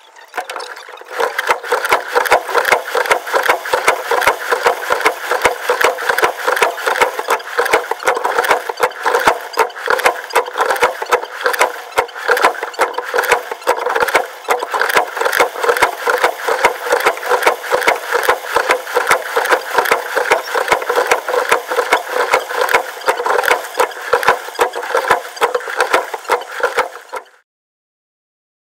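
Continuous rapid rattling clatter picked up at the bow of a moving rowing shell, where the camera is mounted. It cuts off suddenly near the end.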